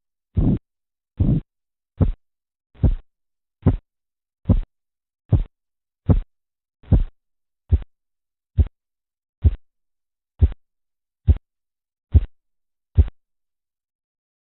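Korotkoff sounds heard through a stethoscope over an artery as the blood pressure cuff deflates: a regular beat at about 70 a minute, about sixteen beats. The first beats are longer and swishing, the later ones short, sharp taps. They stop about 13 seconds in, the disappearance of the sounds that marks the diastolic pressure.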